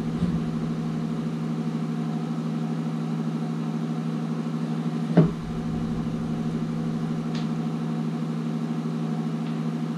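Steady low mechanical hum, with one sharp knock about halfway through.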